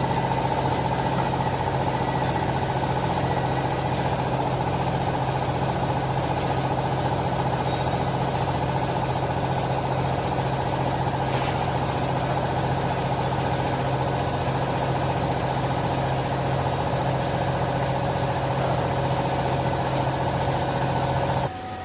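Hydraulic used-clothes baler's power unit, its electric motor and hydraulic pump running with a steady hum while the press works, then stopping abruptly near the end.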